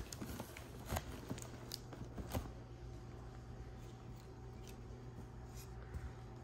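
Faint handling of a cardboard box during unboxing: a few sharp clicks and rustles in the first two and a half seconds, then quieter rustling, over a low steady hum.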